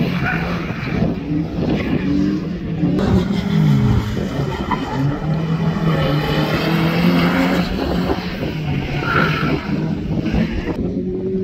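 Rally car engine racing hard, its revs climbing and dropping several times.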